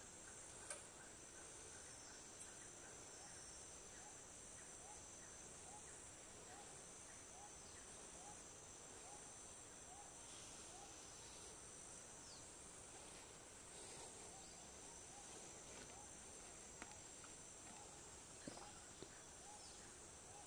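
Faint, steady high-pitched insect chorus, with a short call repeating about twice a second for much of the time and a few faint clicks.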